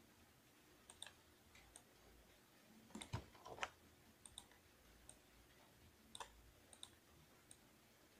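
Faint, irregular clicks of a computer mouse and keyboard, a few at a time, with the busiest run about three seconds in.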